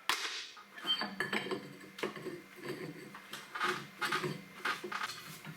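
Metal tools and parts clinking and clattering in an irregular string of light knocks as they are handled, with a faint steady hum behind.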